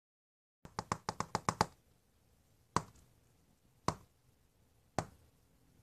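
Light taps, fingertips on a touchscreen device: a quick run of about seven taps in the first two seconds, then three single taps about a second apart.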